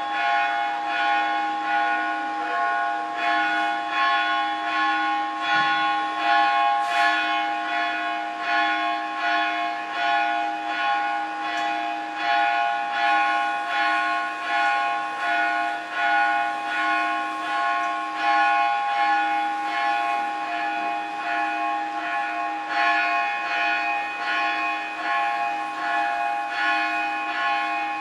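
Temple bells struck over and over in a steady rhythm during an abhishekam, their ringing tones overlapping without a break.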